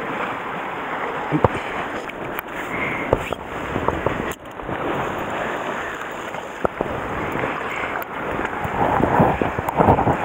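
Sea surf washing against the rocky shore, with wind buffeting the microphone. A few short clicks and knocks are heard, and the wash swells near the end.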